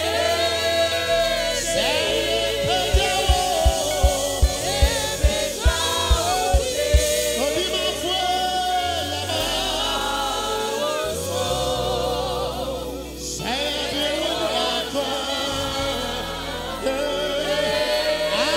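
Live gospel praise singing: a lead singer with a choir and congregation singing together over the band. Between about three and seven seconds in, a run of about a dozen loud low beats comes at roughly three a second.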